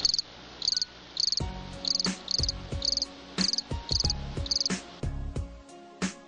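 Cricket chirping: short, high trilled chirps of a few quick pulses each, repeating about twice a second, with soft low knocks underneath.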